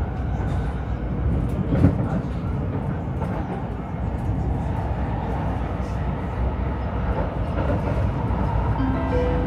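Stockholm metro train running, heard from inside the carriage: a steady rumble of wheels on rails, with a knock about two seconds in. A brief pitched tone starts just before the end.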